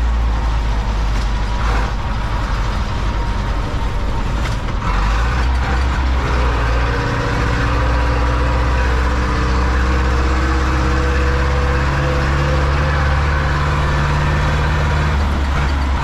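Zetor 7245 Horal tractor's four-cylinder diesel engine running steadily under load while hauling a trailer of wheat, heard inside the cab. About five seconds in the engine note steps up a little louder and then holds even.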